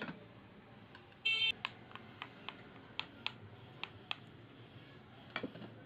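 Metal spoon clinking against a ceramic bowl while stirring mayonnaise: light, irregular ticks, about three a second at times, with a short high squeal about a second in.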